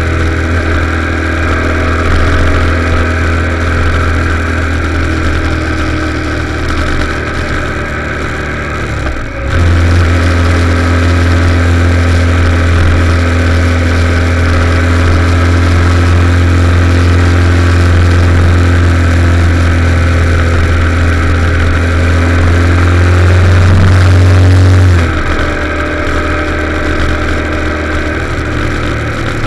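Motorcycle engine running steadily at road speed. It dips briefly about nine seconds in, then pulls louder until it eases off around twenty-five seconds.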